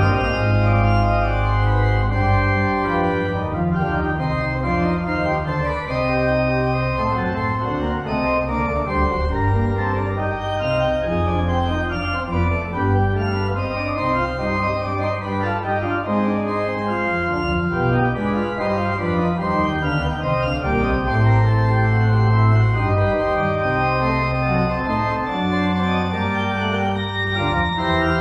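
Pipe organ playing a slow piece of sustained chords over a deep held bass, the closing voluntary of the service.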